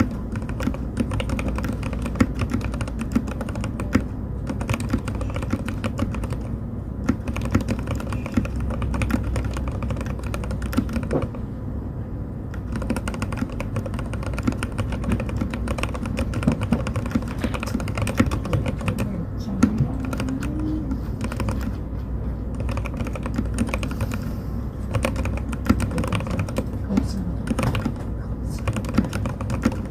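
Steady, fast typing on a mechanical keyboard fitted with linear Frankenstein switches that combine C3 Kiwi and Jwick (JWK) Yellow parts. The keystrokes make a dense, continuous stream of clicks.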